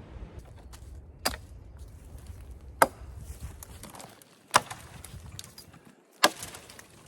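Hatchet chopping into a wooden branch: four sharp strikes about a second and a half apart. It is a Seven Pines Forge Bushcraft Hatchet, with a 1¾-pound head on an 18-inch handle.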